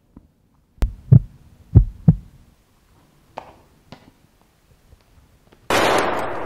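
A sharp click followed by three deep thuds in a slow uneven rhythm, then, near the end, a sudden loud burst of noise that fades away slowly.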